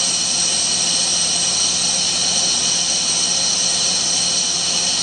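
Heavy CNC roll-turning lathe cutting a spinning steel roll: a loud, steady high-pitched hiss of the tools in the metal, with several steady tones running through it.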